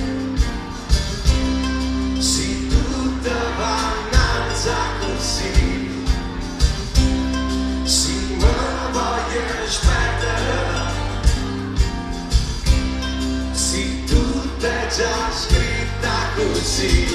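A live band playing a song from within the audience: guitars, bass and drums with a steady beat, and singing over it.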